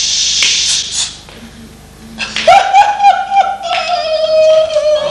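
A performer laughing loudly and breathily. After a short pause comes a long, high-pitched laughing cry held for nearly three seconds, pulsing at first and then sinking slightly in pitch.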